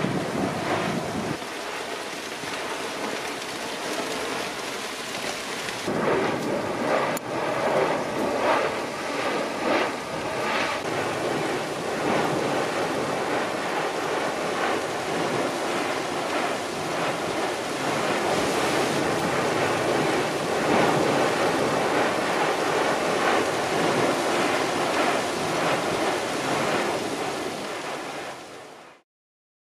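Piton de la Fournaise's lava fountain erupting: a steady rushing roar broken by repeated short bursts of spatter, most marked about six to eleven seconds in. It fades out near the end.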